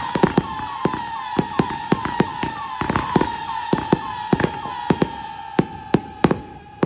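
Consumer firework cake finale firing a rapid string of sharp bangs, several a second, over a steady high whistling tone. The shots thin out and spread apart near the end.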